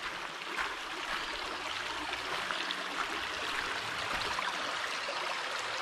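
Shallow creek water flowing steadily over stones and through a concrete box culvert.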